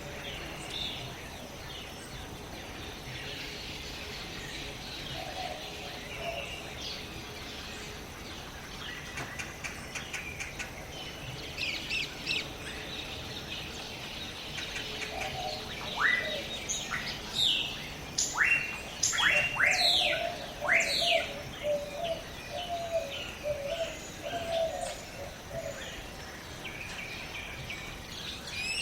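Jungle ambience: birds chirping and calling over a steady background hiss, with a run of loud, sharp downward-sweeping whistled calls about halfway through and a lower warbling call alongside them.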